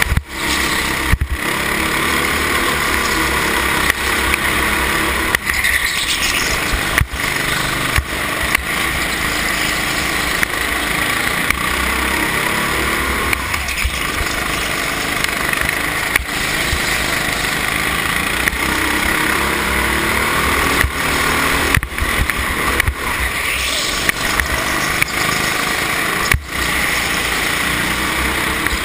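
Go-kart engine heard from on board, running hard throughout, with the revs rising and falling through the corners and a few brief sharp dips.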